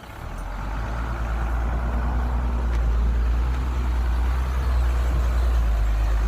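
Heavy dump truck's diesel engine running, growing louder over the first two seconds and then holding a steady low rumble.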